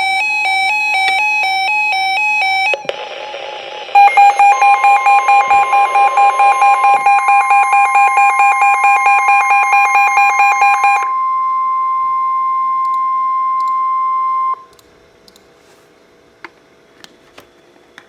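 Emergency alert tones: rapidly alternating electronic tones, a short burst of harsh noise, then the steady 1050 Hz NOAA Weather Radio warning alarm tone held for about ten seconds. A loud, fast-pulsing electronic alarm beeps over the first seven seconds of that tone, and the tone cuts off abruptly.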